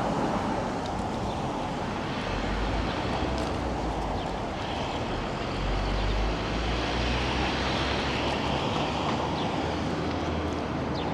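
Steady city street and traffic noise heard while riding an electric scooter, with a low rumble that swells twice.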